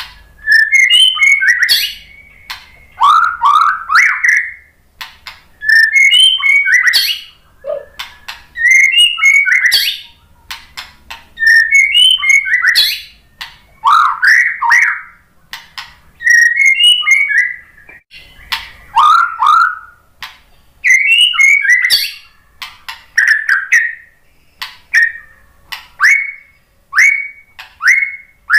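White-rumped shama singing: loud whistled phrases every two to three seconds, each a quick run of clear notes that rise and fall, some sweeping downward, mixed with sharp clicking notes.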